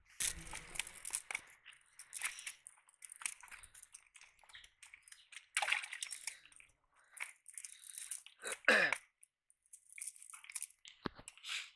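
Close, crinkly rustling and crunching of a nylon cast net's mesh being handled as fish are picked out of it, in irregular bursts with small clicks, the loudest about two-thirds of the way in.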